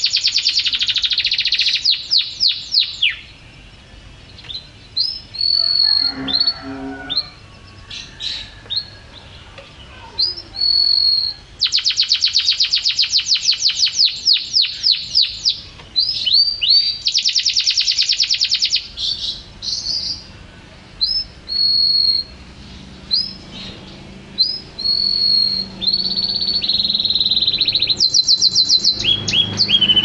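Domestic canary singing: long, fast rattling trills alternating with short whistled notes, the trill runs returning several times.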